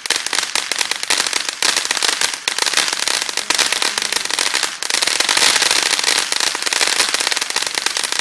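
Fireworks crackling: a dense, rapid run of sharp pops that keeps on without a break, dipping briefly a little past halfway and growing loudest just after.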